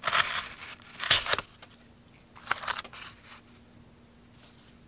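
Ruike P875-SZ pocket knife blade slicing through paracord: four short rasping cuts, the first two loudest.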